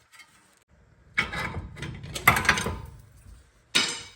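Rapid mechanical rattling from a tool pressing the front axle shaft out through the wheel hub, lasting about a second and a half, then a shorter burst near the end.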